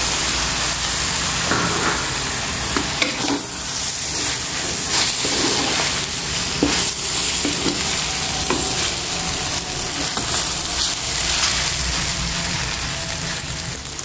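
Yellow noodles with beef sizzling in a hot wok while a wooden spatula stirs and tosses them, with occasional scrapes of the spatula against the pan.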